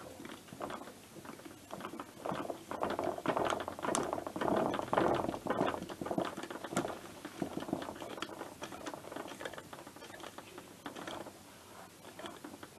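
Irregular metallic clicking and scraping of a hand tool tightening a blanking plug into the exhaust port of a Minarelli AM6 two-stroke engine, busiest in the first half and thinning out toward the end.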